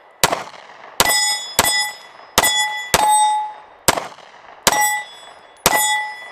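Diamondback AM2 9mm pistol fired eight times in steady slow fire, about one shot every three-quarters of a second. Most shots are followed by the ringing of a hit steel plate target.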